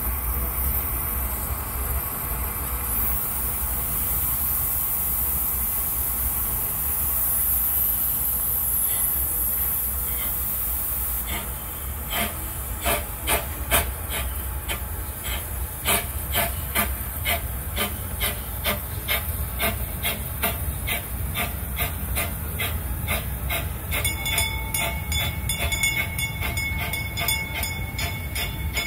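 A small train hauled by the 1961 Skooter locomotive running, with a steady low rumble and hiss. About twelve seconds in, a regular clicking of wheels over the rails begins, a couple of clicks a second, and a few seconds before the end a high steady squeal joins it.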